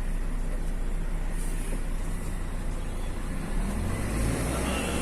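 Engine and road noise of a moving vehicle: a steady low hum over a hiss, swelling briefly about four seconds in.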